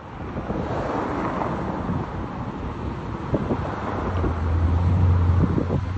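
Lamborghini Aventador's V12 engine running as the car drives past, a deep steady hum that grows louder about four seconds in as it comes alongside. Wind on the microphone.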